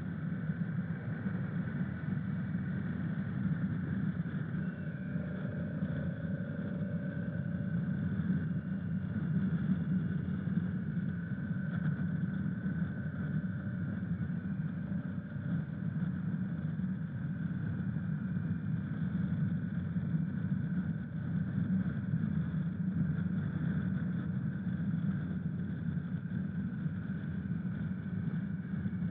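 Honda CRF1000 Africa Twin motorcycle's parallel-twin engine running steadily, with no clear revving or change in pitch.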